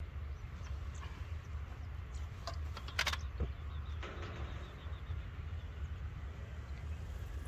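Scattered clicks and knocks from handling a car rooftop tent as it is opened, the loudest a sharp double click about three seconds in, over a steady low rumble.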